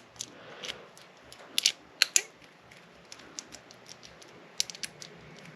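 Small, irregular metallic clicks of a pin-tumbler lock cylinder being worked by hand: a blank key wiggled back and forth in the keyway while a shim is fed around the plug, raising the pins. A few louder clicks come about one and a half to two seconds in and again near the end.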